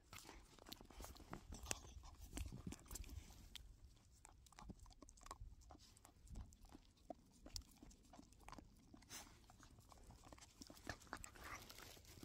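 Dogs licking food from a squeeze tube: faint, irregular wet smacks and clicks of tongues and lips.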